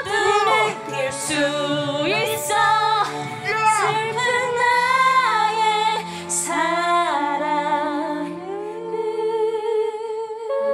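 A woman singing a ballad into a karaoke microphone, with sustained accompaniment tones beneath. Her voice slides between notes and ends on a long held note with vibrato, about two seconds long, near the end.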